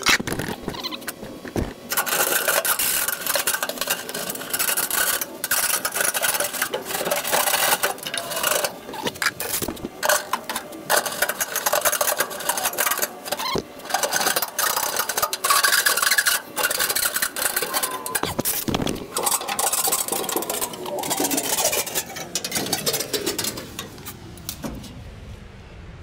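A brush scraping and rasping up and down inside the clogged heat exchanger cells of an old Bryant gas furnace, in irregular strokes, scouring out built-up debris. It eases off near the end, where a faint falling whine can be heard.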